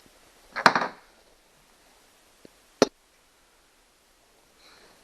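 Knocks from chainsaw parts being handled during a teardown: a short clatter a little over half a second in, then one sharp knock near the three-second mark.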